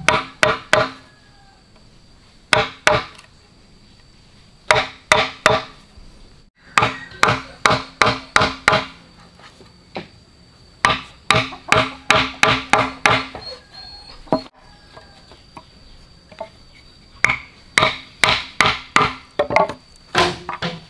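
Rapid chopping blows on wood, in runs of several quick strokes about five a second, separated by short pauses.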